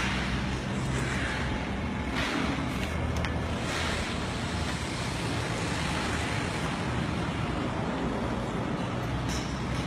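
Steady low rumbling background noise, with a few soft scuffs in the first four seconds.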